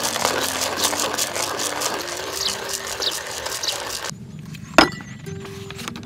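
Manual burr coffee grinder being hand-cranked, crushing roasted coffee beans with a dense, crunchy grinding that stops about four seconds in. A single sharp click follows about a second later.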